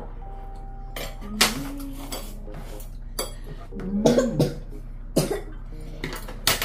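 A person coughing several times in short, sharp bursts while eating spicy instant noodles.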